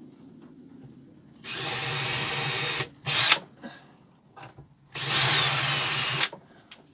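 Ryobi cordless drill boring pilot holes for screws: two steady runs of about a second and a half each, with a short burst in between.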